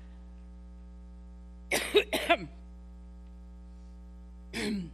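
A woman coughs twice in quick succession about two seconds in, part of a coughing fit during a speech, over a steady electrical hum; a shorter vocal sound follows near the end.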